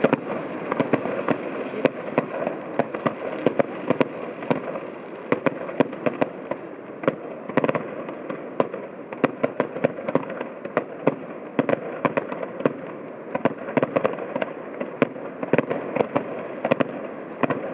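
Fireworks display: a dense, unbroken run of sharp bangs and crackles, several each second, with no pause.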